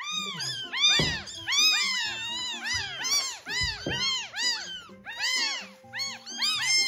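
A litter of newborn kittens, about a week old and 85–89 g, crying loudly and over and over, several at once, each cry rising then falling in pitch.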